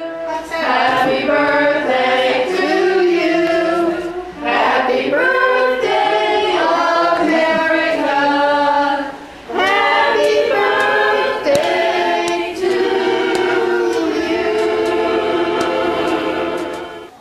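Choir singing, several voices holding long notes together, with two short breaks about four and nine seconds in.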